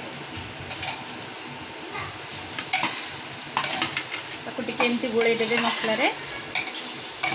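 A steel ladle stirring cubes of bottle gourd through sizzling masala in a pressure cooker pan. The oil sizzles steadily. From about two and a half seconds in, the ladle scrapes and clinks repeatedly against the pan.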